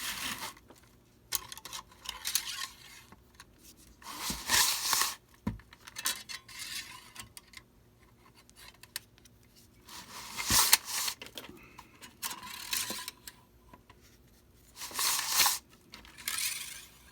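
Steel fish tape being gripped and pulled with the fish-tape puller of linesman pliers: about seven separate bursts of metallic scraping and rattling, each half a second to a second long.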